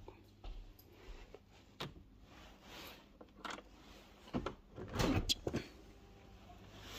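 Clicks and knocks of a latch and frame being worked open, with rustling from handling and movement. The loudest knocks come together about four and a half to five and a half seconds in.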